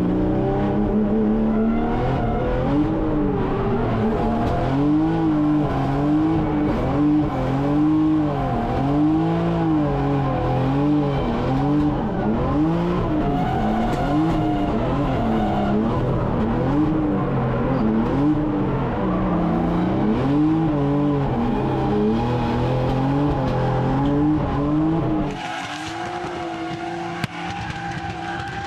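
Drift car engine heard from inside the cabin, revving up and down in rhythmic throttle pulses about once a second through a drift run. About three seconds before the end the engine sound cuts off abruptly and gives way to a quieter sound.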